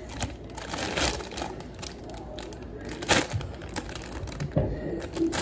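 A clear plastic bag of red seedless grapes crinkling and rustling as hands handle it, with the grapes shifting inside. The sound comes as irregular rustles and sharp clicks.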